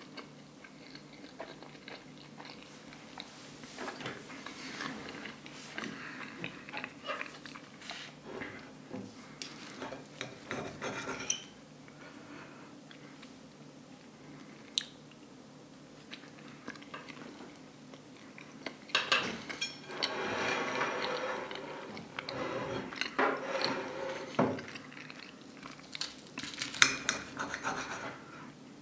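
Knife and fork scraping and clicking against a plate as a chicken burger is cut into pieces, in irregular bursts that grow busier and louder in the second half.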